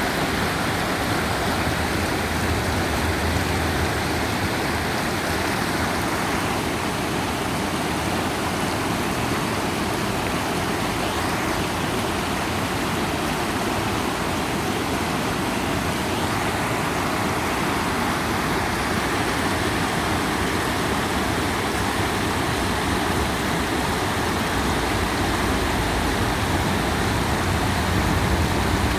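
River water flowing, a steady rushing that does not let up. A low rumble grows slightly stronger near the end.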